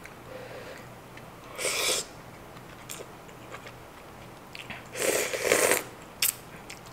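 A person slurping thick udon noodles in creamy sauce, then sipping the sauce from a wooden spoon: a short slurp about two seconds in and a longer, louder one about five seconds in, with a brief click near the end.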